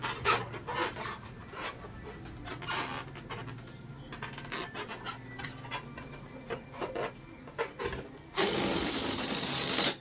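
Rubber balloon being handled, with short squeaks and rubbing scrapes as hands grip and turn it. Near the end, a loud steady hiss lasts about a second and a half and cuts off suddenly.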